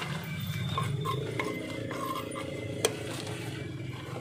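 Crisp fried crackers being swept by hand off a wooden board into a paper wrapper: light scraping and paper rustling with scattered small clicks, and one sharp click about three seconds in, over a steady low hum.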